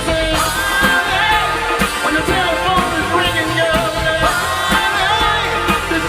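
A live band playing full rock-style music, with steady drum beats under a bending lead melody line.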